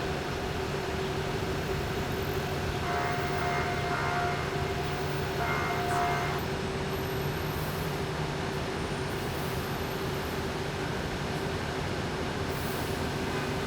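Steady city street noise of traffic and running engines with a constant low hum. A higher steady tone sounds for about three seconds partway through.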